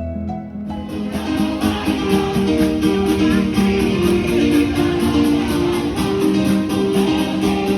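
Background music led by guitar, with a steady quick beat that fills out about a second in.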